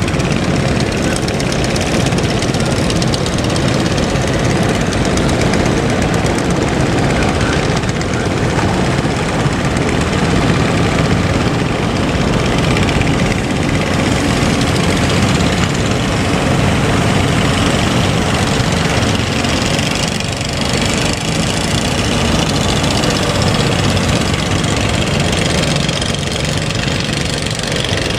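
Fishing boat engines running steadily under a continuous wash of noise.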